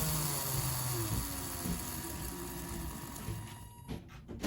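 Brushed DC motor on a 30A brushed ESC winding down as the throttle is eased back from full speed: a whine falling in pitch over a steady whirring, fading and stopping about three and a half seconds in.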